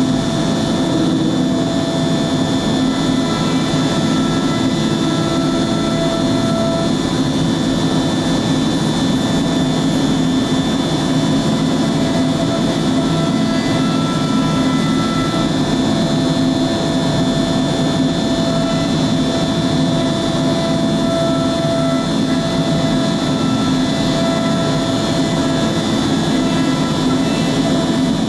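CNC router running, its spindle head moving across a sheet on the bed: a loud, steady mechanical drone with a higher tone that comes and goes several times.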